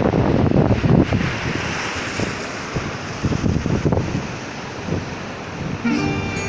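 Wind buffeting the microphone over a steady rush of surf, with gusts rising and falling.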